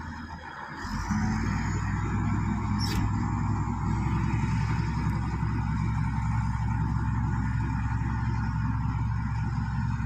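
Shantui SD16 crawler bulldozer's diesel engine running steadily while it pushes soil, louder from about a second in. A single sharp click comes about three seconds in.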